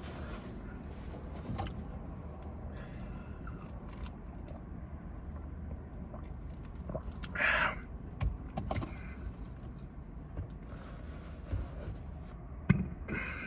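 Eating noises: chewing and handling of food and containers, heard as scattered clicks and rustles over a steady low hum, with a short louder smack or crunch about seven seconds in and a sharp click near the end.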